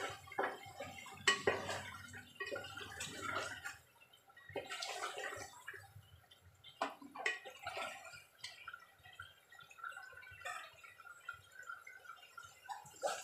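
Thick chicken masala bubbling and spluttering in an aluminium pot as it fries, stirred with a long spoon, with scattered clicks and scrapes of the spoon against the pot.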